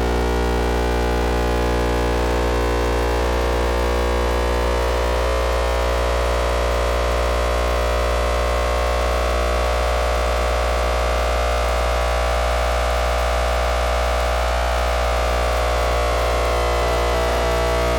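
Old thyratron tube wired as a sawtooth oscillator, heard through a speaker as a steady electronic buzz with a wavering tone that slides up and down in pitch. Its erratic, noisy tone is typical of a tube the owner takes to be old and probably very worn out.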